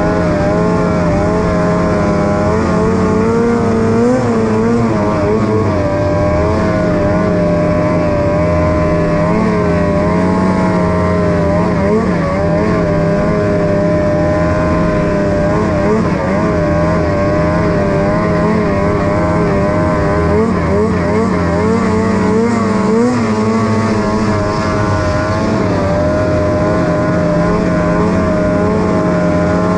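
Snowmobile engine held at a steady high pitch with small wavers, as the sled skims across open water, with a hiss of water spray over it.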